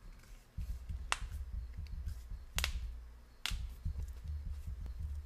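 Three sharp snaps made with the hands, the second about a second and a half after the first and the third about a second later, over a low rumble.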